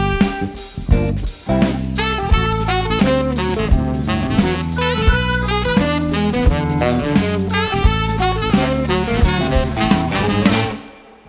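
Jazz-rock band playing: a tenor saxophone line over drum kit, bass and keyboards. The band drops out suddenly near the end.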